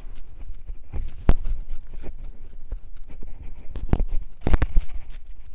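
Microphone handling noise as the microphone is adjusted: irregular knocks, bumps and rustling, with a sharp thump about a second in and several more near the end.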